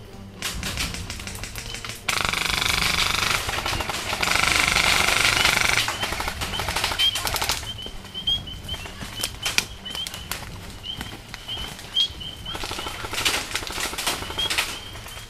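Airsoft guns firing rapid full-auto bursts in a night firefight. The densest, loudest stretch runs from about two to six seconds in, with scattered shots and clicks afterwards.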